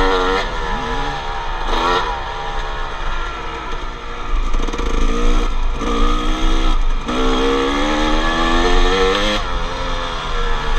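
Two-stroke 250 dirt bike engine being ridden on a trail, revving up and dropping off again and again, with a long climb in pitch that breaks off near the end.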